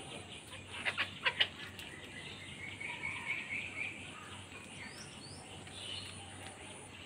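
Hens feeding on rice grains, with a quick run of four sharp pecking taps about a second in. Birds chirp over a faint steady background hum.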